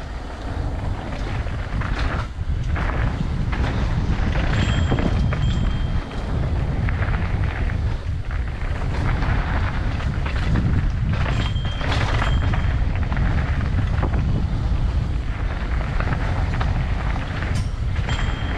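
Wind rumbling on the camera microphone and mountain bike tyres rolling fast over a dirt and gravel trail, with knocks and rattles from the bike over rough ground. The brakes give a brief high squeal three times.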